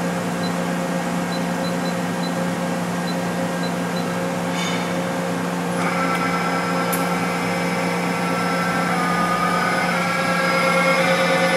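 Okuma MX45VAE vertical machining center humming steadily, with a series of short high beeps in the first few seconds. About six seconds in the spindle starts, adding a whine whose pitch shifts up and down in steps as the spindle speed is changed.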